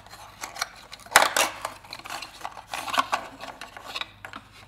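Cardboard puzzle box being opened by hand and the small bamboo puzzle taken out: irregular rustling and scraping of cardboard, with scattered light clicks and a sharper knock about a second in.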